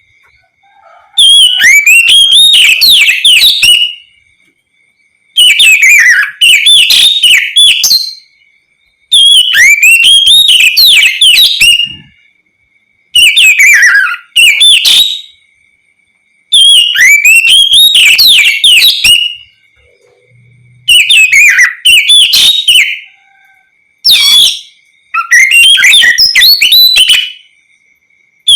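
Oriental magpie-robin (kacer) singing in loud phrases of rapid whistled, sweeping and chattering notes. There are about eight phrases of two to three seconds each, with short pauses between them.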